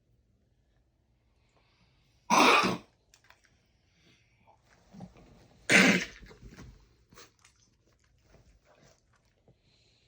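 Cat coughing: two loud, short, harsh hacks, about two seconds in and again about six seconds in, with fainter sounds around the second.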